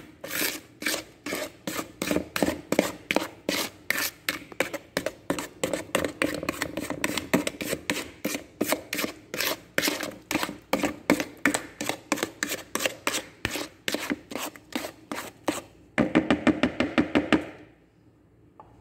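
A wooden spoon beating thick cake batter of creamed butter, sugar and egg yolks in a ceramic bowl, knocking against the bowl about four times a second. The strokes quicken briefly near the end, then stop.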